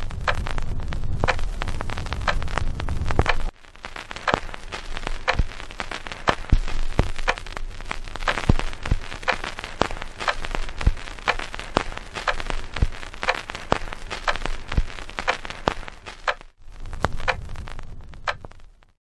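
Sea waves washing in: a steady hiss of surf packed with dense crackling, changing abruptly about three and a half seconds in and again near the end.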